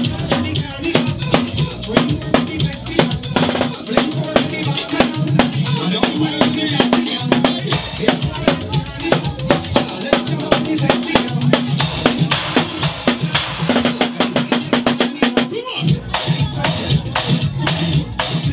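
A drum kit played live with rapid snare, rimshot and cymbal strikes, over loud dance music with a steady bass line.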